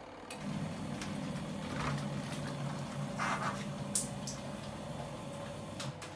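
Mini single-tub washing machine's motor running with a steady hum, starting about half a second in and stopping just before the end, with a few short noises over it.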